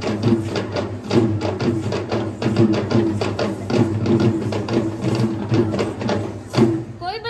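Sri Lankan low-country (pahatarata) drumming for a traditional dance: rapid, rhythmic drum strokes, about four or five a second, over a steady low hum. A singer's voice comes in at the very end.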